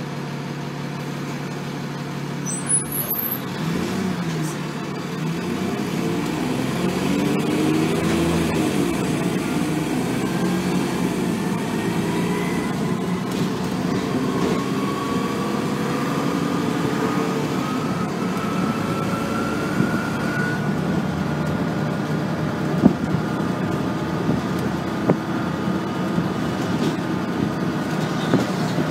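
ADL Trident double-deck bus's diesel engine and automatic gearbox: idling, then pulling away a few seconds in and accelerating hard, with a rising gearbox whine that drops at a gear change about halfway and climbs again before the bus settles to a steady run. A few sharp rattles from the bus body near the end.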